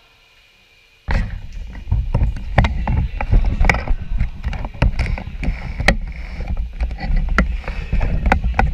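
Handling noise on the camera's microphone as the camera is gripped and turned by hand. About a second in it jumps from faint room tone to a loud rumble with frequent knocks and clicks.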